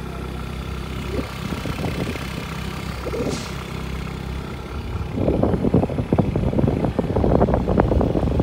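Small motorcycle engine running steadily while riding, a low rumble. About five seconds in, rough gusty wind buffeting on the microphone grows louder over it.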